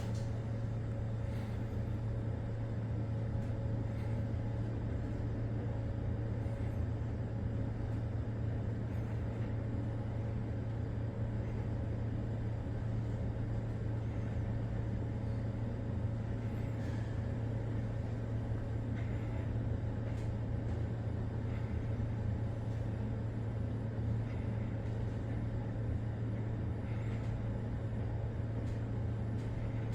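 Hyundai WBHS-GX gearless traction elevator car travelling, heard inside the cab: a steady low hum with an even rushing noise over it.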